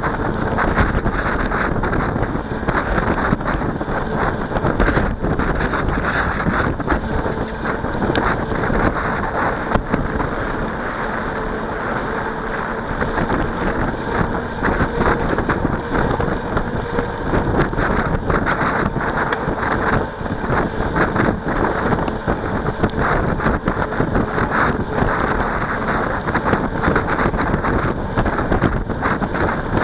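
Wind rushing over the microphone of a camera on a moving bicycle, a loud steady buffeting noise, with a faint steady hum beneath it through most of the stretch.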